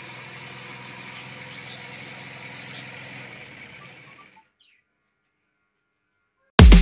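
Faint steady background hum and hiss, fading out about four seconds in to dead silence; loud electronic dance music with a heavy beat cuts in abruptly near the end.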